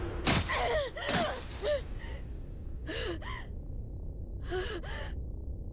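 A person sobbing: short, pitched gasping breaths, mostly in pairs, coming about every second and a half.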